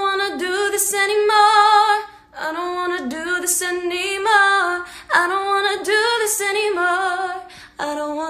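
A young woman singing unaccompanied: held sung phrases with vibrato, separated by short breath pauses about two, five and seven and a half seconds in.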